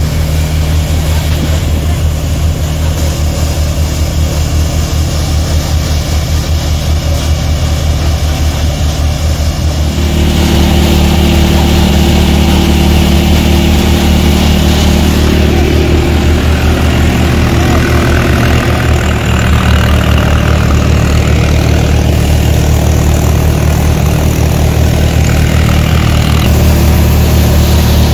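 Tractor-driven multicrop thresher running steadily while threshing soybean plants: the tractor engine's low, even running mixed with the whirring of the thresher's drum and belts. It gets louder from about ten seconds in.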